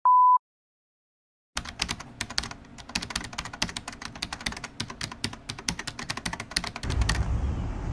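A short, loud steady beep, then about a second of silence, then rapid computer-keyboard typing, many quick uneven clicks lasting about five seconds. Near the end a low steady rumble comes in.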